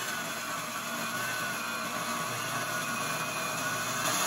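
Ryobi 8-1/2-inch compound miter saw with a Diablo Steel Demon metal-cutting blade, cutting through 1-1/4-inch steel round bar. The blade's grinding in the metal runs steadily and grows louder right at the end.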